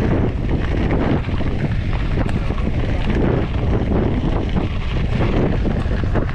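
Heavy wind noise buffeting a GoPro action camera's microphone during a mountain bike ride, with the steady rattle and crunch of the bike's tyres on a loose gravel track.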